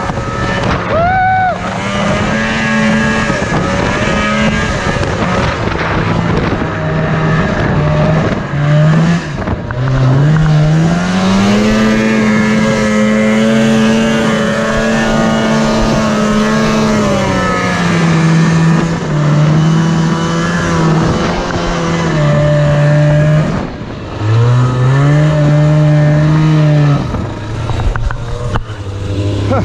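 Yamaha Enticer snowmobile's two-stroke engine revving hard and working under load on a steep climb. The revs rise and fall repeatedly, are held high for several seconds around the middle, dip sharply about three-quarters of the way through, then climb again.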